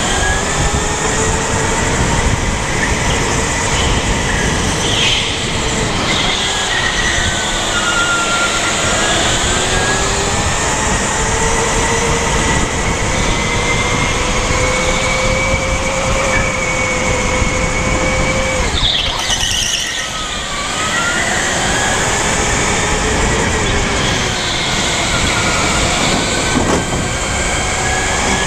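Kart's electric drive motor whining from onboard, its pitch rising and falling with speed through the corners, over steady road and wind noise.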